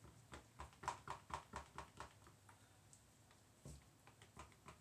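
A run of light, quick knocks, about four a second, then a few more near the end: a stirrer knocking against the sides of a plastic jug while soap mixture is stirred.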